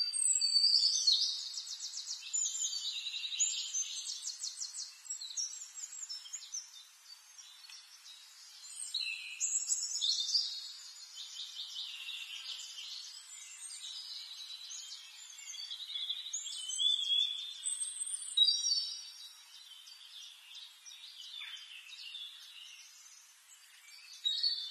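Small birds chirping and trilling, with rapid high trills and short calls coming in clusters, over a faint steady hiss.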